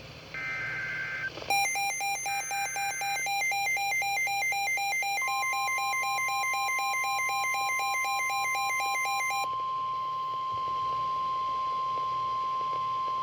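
Emergency Alert System tones. First come two short bursts of the screeching digital data header. Then a fast-pulsing electronic alarm beep starts, and about 5 s in a steady single-pitch warning alarm tone of about 1050 Hz, the NOAA Weather Radio style, joins it. The pulsing stops near 9.5 s while the steady tone holds on.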